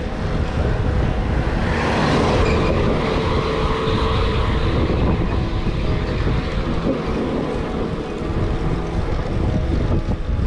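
Wind buffeting a handlebar-mounted camera's microphone while a road bike rolls along, with steady low rumbling and a broader rush of hiss that swells about two seconds in and eases off by about five seconds.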